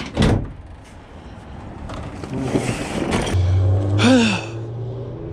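Knocks and handling noise. About three and a half seconds in, a truck engine starts to idle with a steady low hum, and a short falling voice-like sound comes about four seconds in.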